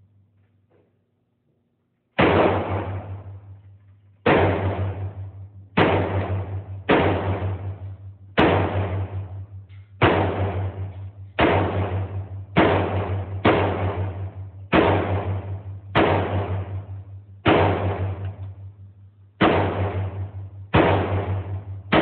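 AR-15-style rifle chambered in .300 Blackout firing single shots, about fourteen in a row, one every one to two seconds. Each shot rings out and echoes off the walls of an indoor range.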